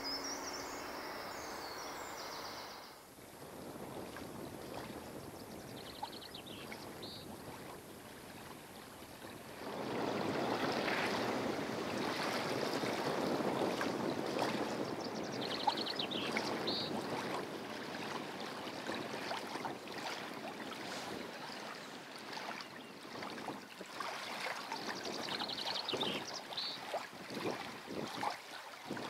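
Lakeside ambience: a steady wash of lake water lapping, louder after about ten seconds. A short high trill recurs about every ten seconds.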